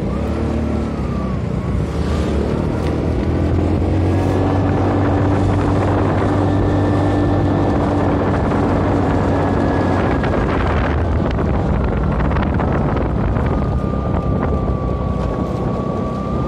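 Motor scooter engine running steadily while riding along a road, with wind buffeting the microphone.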